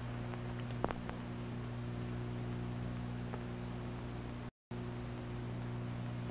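Steady electrical hum and hiss of an old film soundtrack, with a few faint clicks and a brief dropout about four and a half seconds in.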